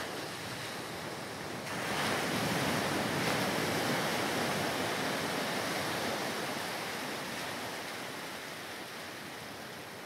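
Sea surf washing onto a rocky shore, a steady rush of waves that swells about two seconds in and then slowly dies away.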